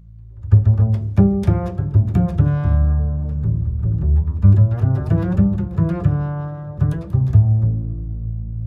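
Low-pitched instrumental music: a run of string-like notes, some struck or plucked and some held, starting about half a second in and fading back to a low sustained drone near the end.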